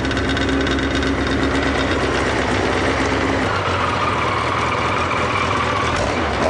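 Yamaha XJ900 Diversion's air-cooled inline-four engine idling steadily, freshly started after a fuel pump replacement. Its tone changes a little about halfway through.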